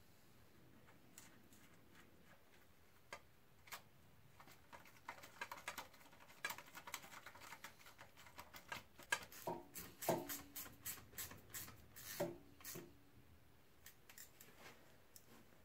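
Hand work fitting small fasteners to a motorcycle's aluminium radiator mounting: a run of faint clicks, taps and scrapes of small metal parts, sparse at first and thickest through the middle.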